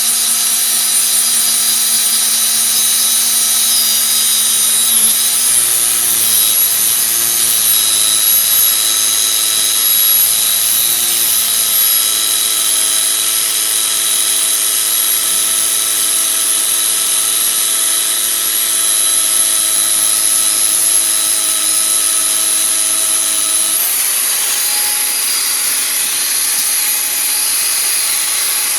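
Angle grinder running steadily as it grinds down the worn, grooved surface of a car brake disc to cure a squeal. Its whine sags slightly in pitch a few times under pressure, then steps up near the end as the load comes off.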